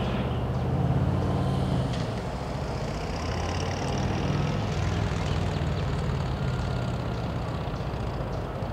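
A heavy engine running with a steady low rumble.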